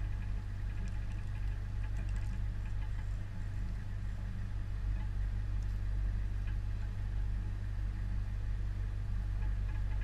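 Military vehicle's engine idling, heard as a steady low hum through the vehicle's roof.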